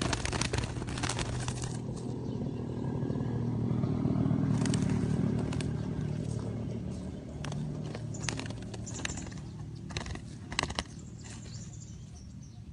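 A vehicle engine passing, with a low hum that swells to its loudest about four to five seconds in and then fades, with scattered sharp clicks and scrapes.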